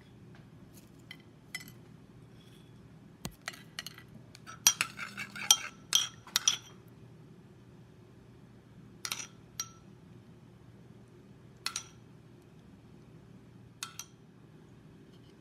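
A metal spoon clinking against the skillet and plates as garlic soy butter sauce is spooned over sliced steak: a quick run of clinks and scrapes a few seconds in, then single clinks every couple of seconds. A steady low hum runs underneath.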